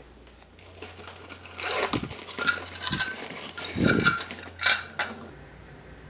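Refrigerant gauges with brass quick couplers being handled and pulled out of a canvas pouch. From about a second and a half in there is a string of light metal clinks and knocks with rustling, a few of the clinks ringing briefly.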